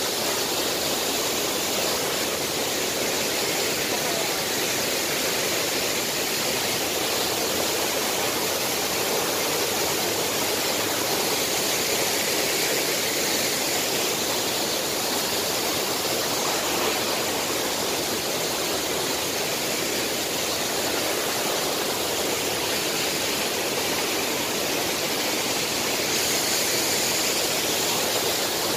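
Waterfalls plunging into a pool, a steady, even rush of falling water.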